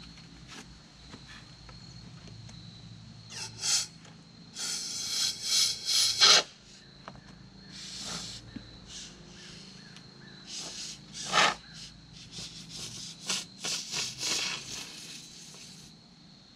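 Can of expanding foam sealant hissing in several spurts of a second or two as foam is sprayed into the gaps around a rock.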